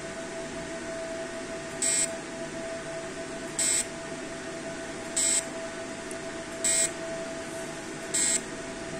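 CO2 fractional laser unit beeping as it fires, one short high beep per laser shot: five beeps, about one every one and a half seconds. A steady hum runs underneath.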